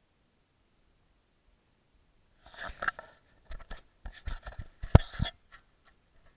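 Puppies nosing and pawing at the camera: a rapid, irregular run of scratches, scuffs and knocks on the camera body, starting about two and a half seconds in, with the sharpest knock about five seconds in.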